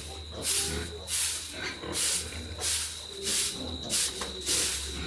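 Broom sweeping a pig-pen floor in steady, rhythmic strokes, a little under two swishes a second.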